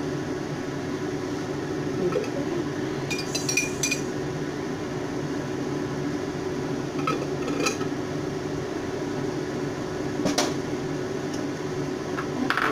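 Kitchenware clinking and knocking at a gas stove with a small frying pan on it: scattered short clinks, a quick glassy cluster about three seconds in and the sharpest knock about ten seconds in, over a steady low hum.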